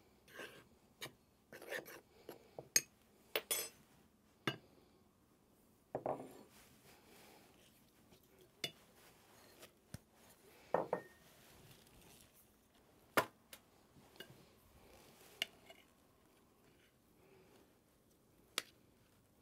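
Kitchen utensils and bowls being handled while thick batter is mixed: a measuring cup and spatula clinking and scraping against a glass mixing bowl and ceramic bowls, with batter scraped out into a metal baking pan near the end. The sounds are scattered light clicks and knocks with short scrapes between them.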